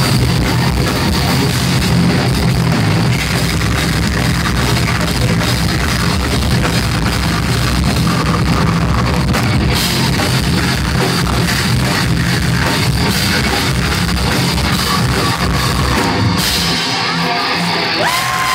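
Metal band playing live at full volume: distorted electric guitars over drums. Near the end the low end drops away and a high tone slides up and back down.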